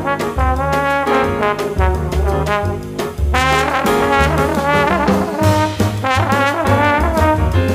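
Background music: a lively tune, its melody of changing notes over a moving bass line and steady beat.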